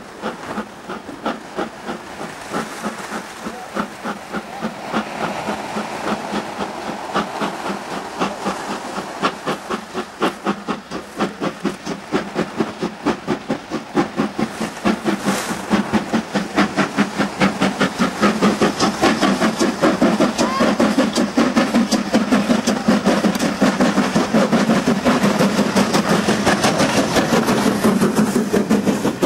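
BR Standard Class 4 2-6-4T steam tank locomotive working a train, its exhaust beating in a steady, even rhythm that grows louder as it approaches and passes. Its coaches follow past near the end.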